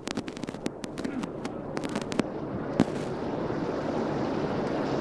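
Firecrackers popping in fast, irregular cracks for a little over two seconds, with one louder crack a little before the three-second mark, followed by a steady murmur of background noise and voices.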